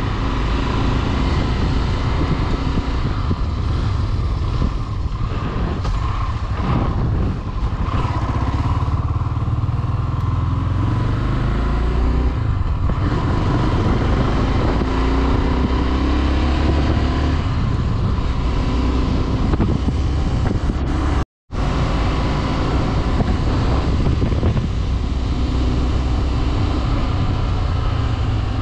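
Small-displacement motorcycle engine running on the move, its pitch rising and falling as it accelerates and eases off, over a heavy low rumble. The sound cuts out completely for a moment about 21 seconds in.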